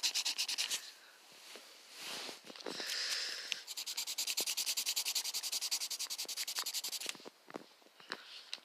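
Coloured pencil shading on paper in rapid back-and-forth scratchy strokes, about eight a second. The strokes break off about a second in, start again after a few seconds, and stop shortly before the end, leaving a few faint taps.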